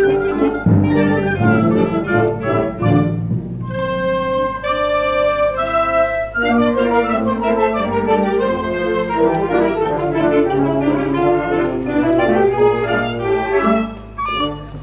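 Concert band of brass and woodwinds playing: sustained chords for a couple of seconds, then a busier passage with brass and clarinets, and the sound drops away sharply near the end.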